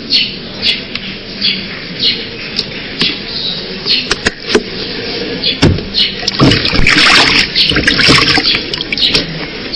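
Water splashing as hands work in a plastic basin of water, starting about six seconds in and running to the end. Before that, a short high chirp repeats about every three-quarters of a second.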